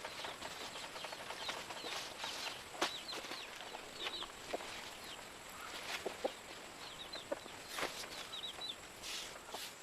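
Small birds chirping in quick, short, falling notes, a few at a time, over a steady high insect hum, with scattered sharp clicks and knocks.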